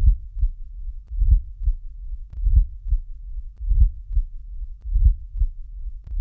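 Heart sounds with a late diastolic (presystolic) murmur: a low-pitched rumble builds late in each pause and runs up to the first heart sound. The beat repeats about every 1.25 s, five cycles in all. This murmur is usually part of the longer diastolic murmur of mitral or tricuspid stenosis.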